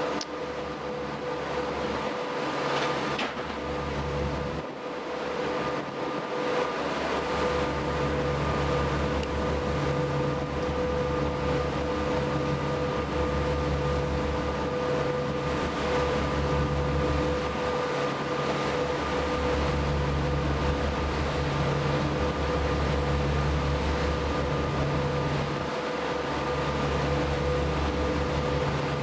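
Engine drone of the passenger boat M/S Söderarm under way: a steady mechanical hum over a low rumble that swells and fades every second or two.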